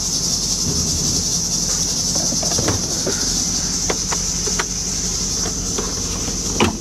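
Steady high chirring of crickets over a low steady hum, with a few light clicks scattered through.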